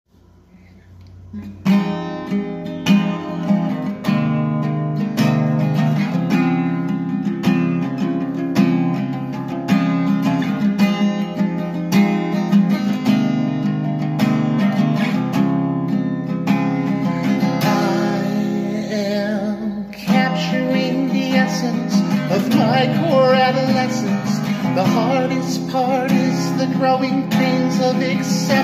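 Solo acoustic guitar strummed in a steady rhythm, starting about two seconds in. A man's singing voice joins past the halfway point, after a brief break in the playing.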